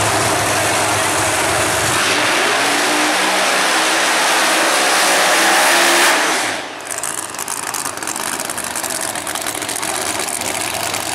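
Pro Mod drag racing cars' engines at full throttle, loud and rising in pitch as the cars launch. Just over halfway through the level drops suddenly to a lower, pulsing engine sound as a car runs down the strip.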